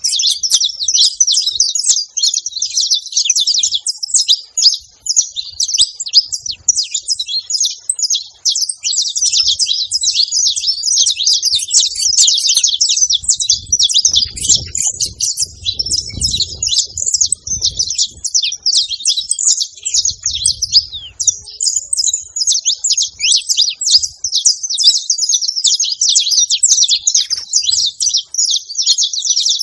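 Saffron finch (canário-da-terra) chirping and singing in a fast, unbroken stream of high, quick notes.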